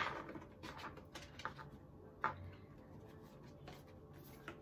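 Oracle cards being handled: a few faint, short taps and rustles, the clearest a little past two seconds in.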